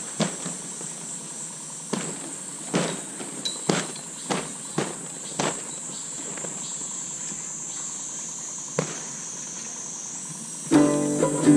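Steady high-pitched chorus of insects chirping, with scattered light knocks and clicks in the first half. Guitar music comes in near the end.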